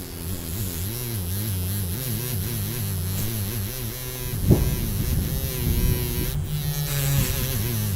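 A low, steady hum with wavering, warbling tones above it and one sharp thump about halfway through.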